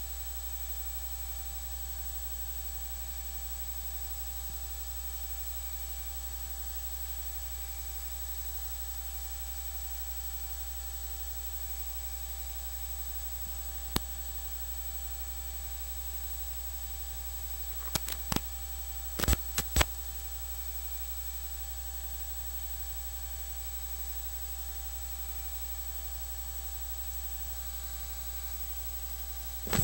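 Steady low electrical mains hum with a faint hiss, with no other sound of the scene coming through. One sharp click comes about 14 seconds in, and a few more sharp clicks come between 18 and 20 seconds.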